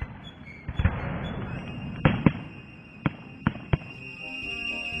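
Fireworks going off: about six sharp bangs, two of them close together about two seconds in. Brass music fades in over the last second.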